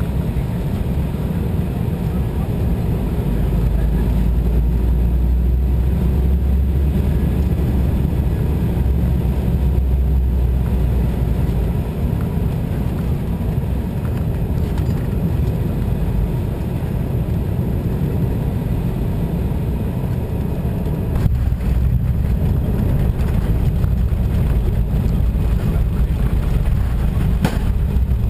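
Embraer 190 jetliner heard from inside the cabin on final approach: a steady low rumble of its turbofan engines and the airflow. About three-quarters of the way through, a jolt as the main wheels touch down, and the rumble turns rougher as the aircraft rolls along the runway.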